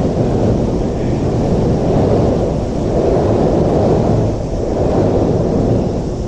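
Yokohama Minatomirai Y500 series electric train running past, a loud, steady low rumble of wheels on rail.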